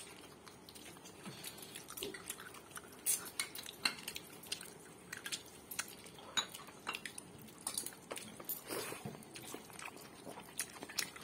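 People eating biryani by hand off plates: soft, irregular clicks and scrapes of fingers and rice against the plates, with some chewing.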